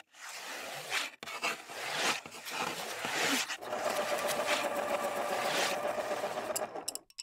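Pencil scratching across paper in quick sketching strokes, a drawn-logo sound effect. From about halfway a steady tone sits under the scratching, and both cut off suddenly near the end.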